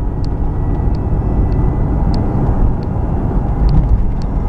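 Inside the cabin of a 2001 Ford Explorer on the move: steady low engine and tyre rumble with a faint high-pitched whine in it. The owner calls this a higher-pitched whirring or whining that changes with road speed; he is still hunting its cause, suspecting the front end or the transmission.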